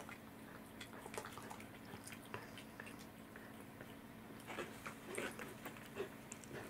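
A cat eating saury off a plate: faint, irregular wet clicks and crunches of chewing, thickest about four and a half to six seconds in, over a low steady hum.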